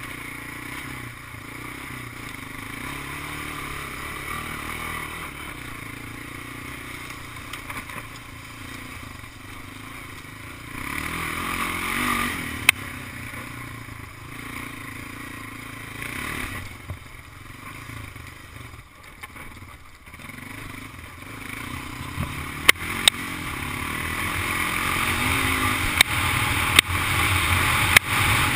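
Big Honda ATV's engine running while riding, with a steady noise over it and several sharp knocks near the end, getting louder over the last several seconds.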